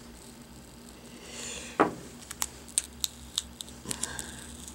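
Adhesive tape being lifted off a laptop screen's video cable connector with tweezers and fingertips: a soft crinkle, one sharp tick, then a string of light, irregular clicks.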